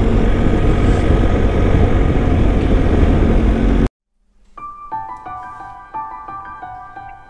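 Wind rushing over the microphone with the engine and road noise of a BMW R1250 boxer-twin motorcycle being ridden, cut off abruptly about four seconds in. After a brief silence, gentle piano music begins.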